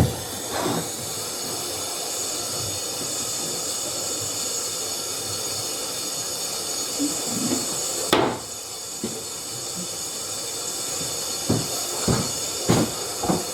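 Water running steadily through a newly plumbed Triton T30i hand-wash water heater and its tap, a constant hiss, while the water side is tested before the electrics are connected. A few short knocks sound over it, one about halfway through and a couple near the end.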